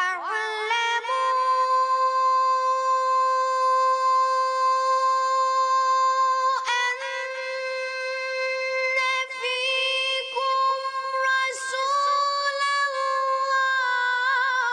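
A high voice chanting Quran recitation in a drawn-out melodic style, holding one long note for the whole phrase with small ornamental turns in pitch about halfway and near the end.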